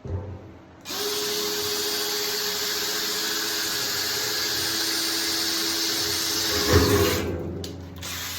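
Power drill boring a small pilot hole through the sheet steel of a 55-gallon barrel: a steady high whine for about six seconds, with a louder moment near the end just before the drill stops and winds down.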